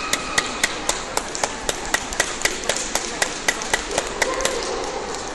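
Hand clapping close by, sharp even claps at about four a second, stopping about four and a half seconds in.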